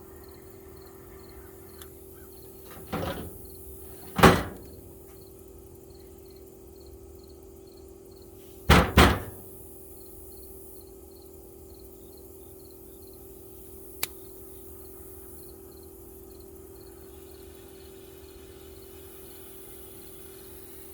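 A few loud knocks and thumps from the toolbox being handled: the loudest about four seconds in, a close double knock near nine seconds, and a single sharp click about fourteen seconds in. A steady hum and a faint, high, regular ticking run underneath.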